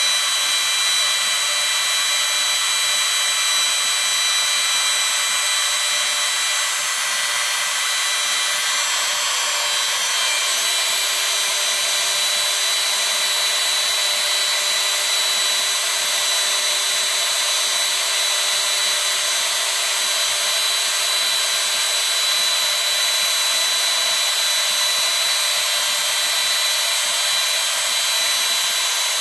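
Hydraulic power pump running steadily, driving a double-acting hydraulic cylinder as its ram retracts. A steady hum joins in about ten seconds in and drops out a little after twenty.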